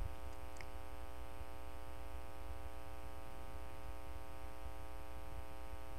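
Steady electrical mains hum with a buzzy stack of overtones over a faint hiss: the background noise of the recording chain.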